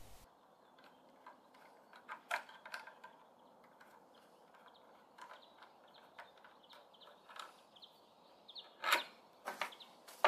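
The screw that holds the receiver of a Hall flintlock breech-loading rifle being turned out by hand: faint, scattered small metal clicks and scrapes, then a few louder knocks near the end as the parts are handled.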